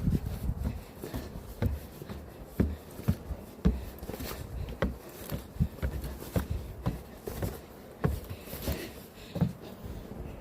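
Footsteps climbing a long flight of steps, a steady tread of about two steps a second.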